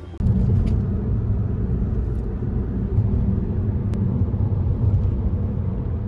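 Steady low road rumble of a moving car, cutting in suddenly just after the start.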